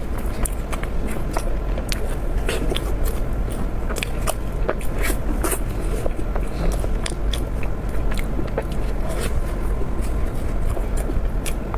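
Close-miked eating: steady biting and chewing with a dense run of sharp, irregular mouth clicks and crackles, over a low steady hum.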